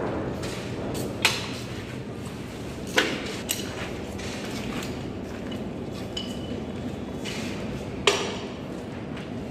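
Sharp metallic clanks of a pipe wrench striking the steel base and anchor bolt of a diamond core drill stand as the bolt is worked, three loud ones spread several seconds apart with a lighter tap between.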